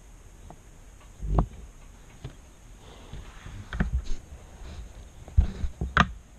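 Handling noise: several sharp knocks and clicks with rustling in between, the loudest near the end.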